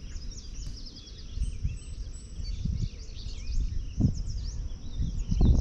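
Many wild songbirds chirping and trilling over a low rumbling background, with two low thumps, one about four seconds in and one near the end.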